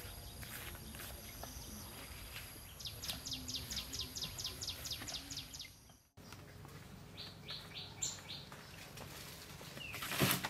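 Small birds chirping outdoors: a rapid run of short chirps, about four a second, then a brief gap and a shorter run of four chirps. Near the end, a loud rustle and thump as a bundle of leafy greens is set down on a wooden table.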